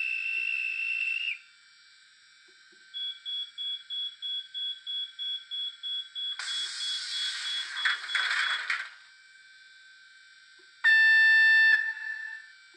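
Sampled departure sounds from a sound decoder in a Z scale ETA 150 railcar model: a short steady whistle blast, then rapid beeping, about four a second for some three seconds, like a door-closing warning, then a burst of air hiss, and about two seconds before the end a loud one-second chord on the railcar's horn.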